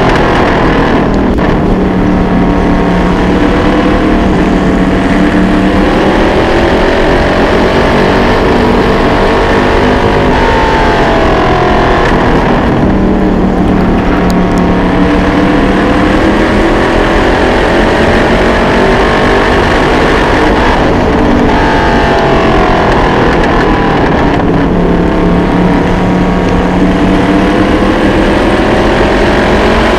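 Vintage late model dirt-track race car's engine running at racing speed, heard up close from on board. Its pitch winds up and falls back several times as the car accelerates down the straights and eases off into the turns.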